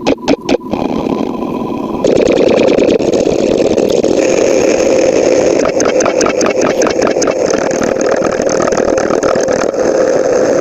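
Engine starting sound effect: a rapid run of rhythmic pulses, like starter cranking, stops just under a second in. About two seconds in, the engine catches and keeps running, loud and steady.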